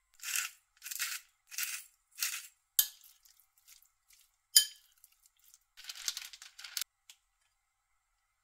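Hand pepper mill grinding over a glass bowl in four short, evenly spaced twists, followed a couple of seconds later by a sharp clink and then about a second of rustling.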